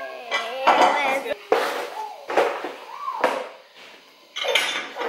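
Dishes clattering in a dish rack as bowls and cups are handled, several knocks and clinks about a second apart.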